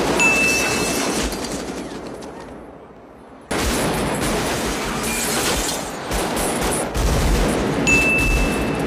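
Rapid automatic rifle fire from a Colt Model 733 carbine and an FN FNC rifle. It fades away over the first few seconds, then cuts back in suddenly, loud, about three and a half seconds in. Near the end the shots punch through a car windshield.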